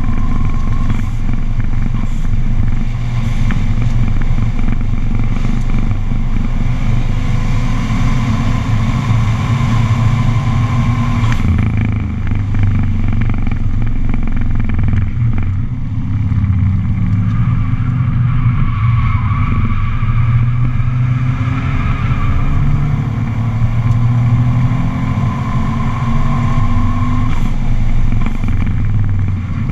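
Subaru's flat-four boxer engine working hard on a circuit lap, heard from inside the cabin. Its note repeatedly climbs and drops as the car goes through the gears and brakes for corners, over steady wind and tyre noise.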